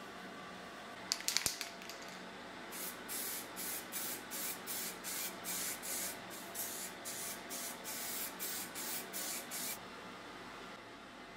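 Aerosol can of matt lacquer spraying in short hissing bursts, about two a second, for some seven seconds. A few sharp clicks come about a second in, before the spraying starts.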